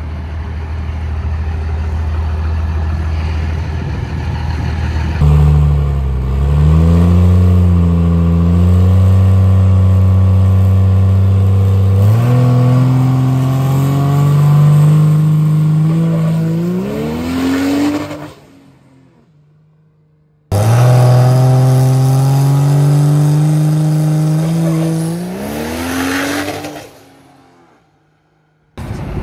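Cummins diesel race truck running steadily, then launching with a sudden jump in loudness and pulling hard, its engine note climbing in steps before dying away. After a short silence a second recording of the truck under full throttle cuts in, rises in pitch and fades out.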